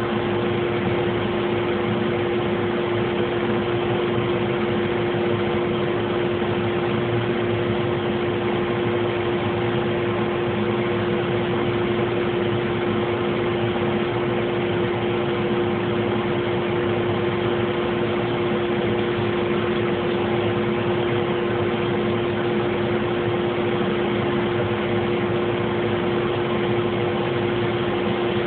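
Laser engraver running during raster engraving: a steady machine hum with one constant mid-pitched tone that never changes.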